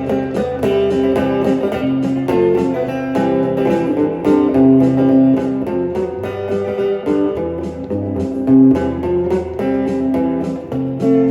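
Instrumental break of a country-blues song: guitar playing over bass and a steady drum beat.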